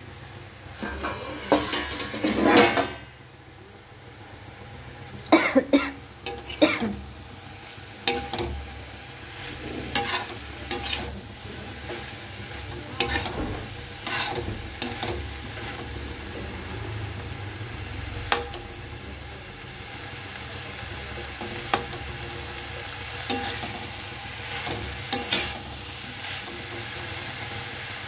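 A perforated steel spatula scraping and clanking against a steel kadai as diced potatoes, peas and spinach are stirred, over a steady sizzle of the vegetables frying. The loudest scrapes come in the first few seconds and again about five to seven seconds in, then sharp knocks of metal on metal recur every few seconds.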